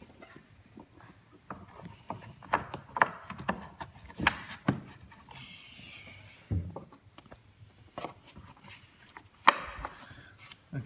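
Wooden spindle and spacers being pushed by hand into the rebate of a handrail and base rail: a scatter of light wood-on-wood knocks and clicks, with a short scraping slide about six seconds in and a sharper knock near the end as the last spindle seats.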